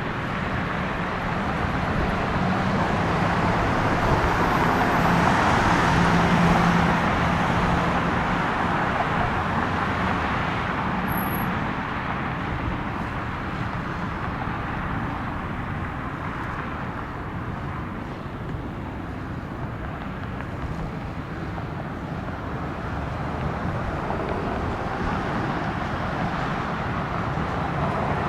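Boeing 737-700 jet engines running as the airliner passes, a broad rushing sound with a low hum that swells to its loudest about six seconds in and then slowly fades.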